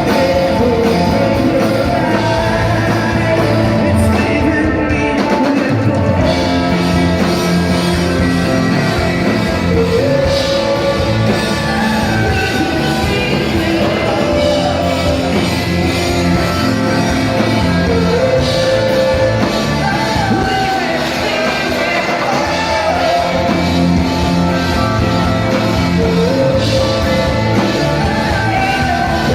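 Live rock band playing, with a singer's voice over guitars and drums, echoing in a large hall.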